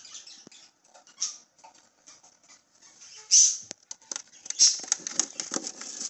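Baby budgies making short raspy, hissing high-pitched calls, the loudest about three and a half and four and a half seconds in. Near the end come quick scratchy clicks as a hand scoops a chick up off the plywood floor.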